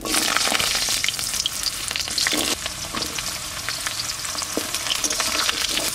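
Potato sticks dropped into hot oil in a kadai, sizzling loudly with a steady crackle of small pops. The sizzle starts suddenly as the potatoes hit the oil.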